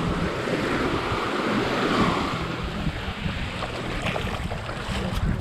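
Small waves washing up on a sandy shore, with one louder wash about two seconds in, and wind buffeting the microphone.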